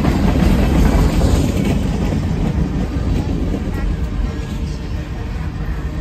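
Freight train cars rolling past on the rails: a steady rumble of steel wheels on track with scattered clicks, loudest over the first two seconds.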